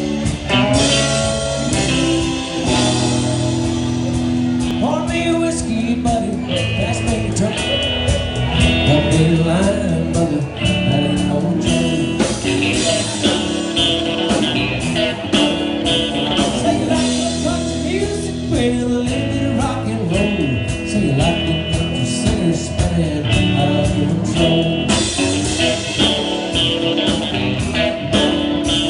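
Texas country band playing live: electric guitars over bass and a drum kit, with a steady beat.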